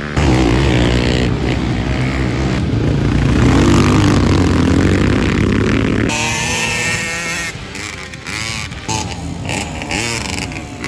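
Racing ATV (quad) engines running hard on a dirt track, revving and accelerating through corners. About six seconds in the sound cuts to another pass, with the engine pitch rising and falling as the riders work the throttle.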